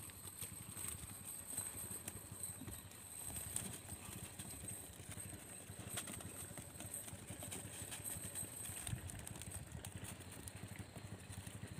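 Cast net being shaken out and gathered, its weighted hem knocking and clattering in small irregular taps on the concrete bridge deck. A steady high-pitched insect drone runs behind.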